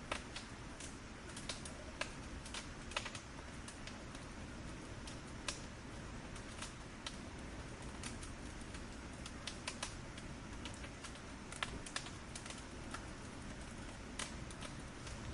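Wood fire crackling: irregular sharp pops and snaps, a few louder than the rest, over a steady low hiss.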